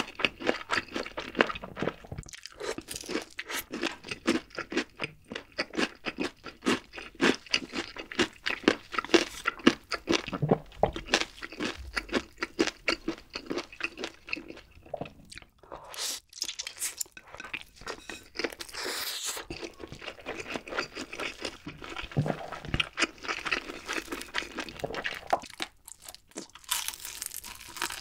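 Close-miked eating sounds: steady crunchy chewing with rapid clicks, broken by a stretch of hissy noodle slurping midway and a bite into glazed fried chicken near the end.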